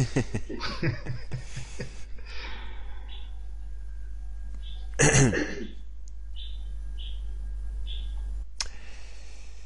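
A man's voice in short, low murmurs and breaths, with one louder vocal sound about five seconds in, over a steady low electrical hum.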